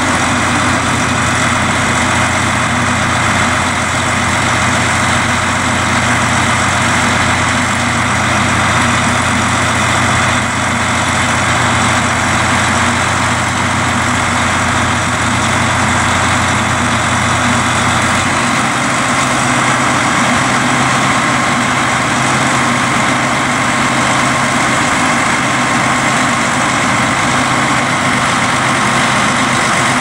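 The 500 hp John Deere diesel engine of a self-propelled hay mower running steadily, with steady whining tones over its low drone. About two-thirds of the way through, the low drone shifts up a little in pitch.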